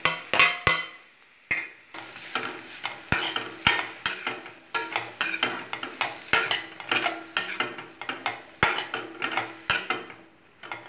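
A spatula stirring and scraping grated coconut through dry-fried grated beetroot in a stainless steel pan, with repeated scrapes and knocks against the metal and brief pauses about a second in and near the end.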